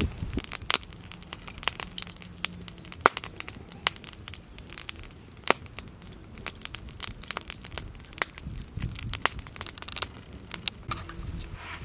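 Small wood fire crackling, with scattered irregular sharp pops.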